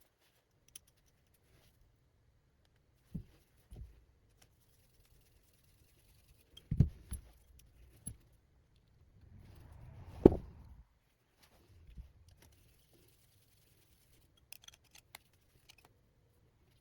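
Small, scattered clicks and knocks of hand tools, screws and drone frame parts being handled while screws are driven in, with a sharper knock about ten seconds in inside a brief rustle.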